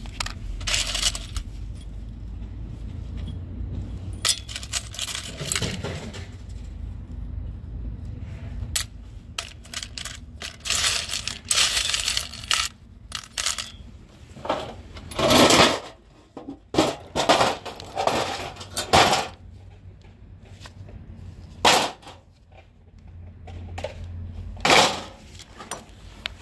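Brass screws and small scrap metal pieces clinking as they are tossed into and stirred in a steel bowl. The jingling comes in irregular bursts with short pauses between, and the loudest clusters fall in the second half.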